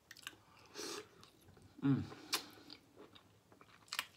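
A person eating smoked turkey leg meat, close to the microphone: soft chewing and mouth sounds with a few sharp clicks. A short voiced sound falling in pitch about two seconds in.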